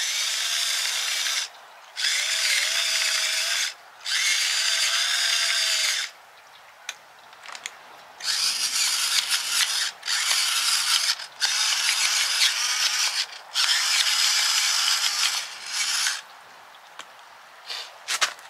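Electric spice grinder running in short runs of one to two seconds, about seven times over, its small motor whining under the steady grinding.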